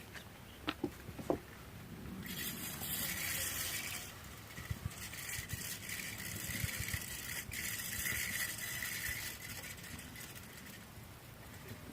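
Fishing reel being cranked to retrieve line: a whirring with a faint pulse about twice a second, from about two seconds in to near the end, briefly slackening once. A few light clicks come just before it.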